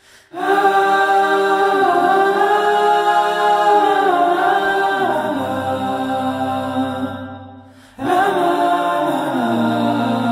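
Male voices singing sustained chords in harmony, a cappella. One long phrase swells in, fades out a little before eight seconds in, and a new phrase begins straight after.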